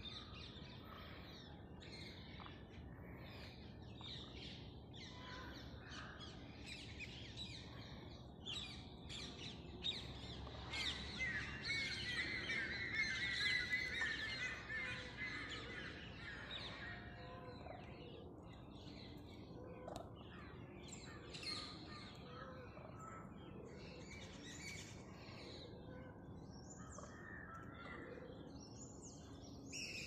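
Several wild birds chirping and calling, with a dense, louder spell of high chirping from about ten to sixteen seconds in.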